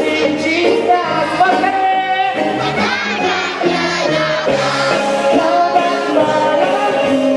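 A man singing live into a handheld microphone over instrumental backing music, amplified through PA speakers. The voice glides between held notes throughout.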